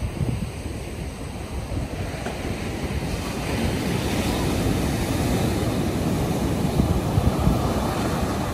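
Ocean surf breaking and washing up a sandy beach, a steady rushing that builds a few seconds in as a wave breaks and spills up the sand. Wind buffets the microphone.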